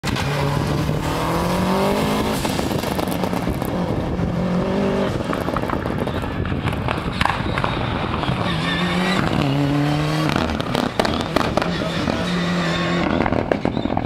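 Subaru Impreza rally car's turbocharged flat-four engine revving hard, its pitch climbing and dropping back several times as it shifts through the gears, with sharp cracks and pops from the exhaust between the shifts.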